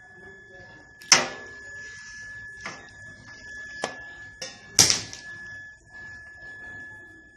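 Two loud sharp clunks about four seconds apart, with a few lighter clicks between, from the door of an IFB 25BC4 convection microwave oven being shut and opened. A faint steady high tone sounds throughout.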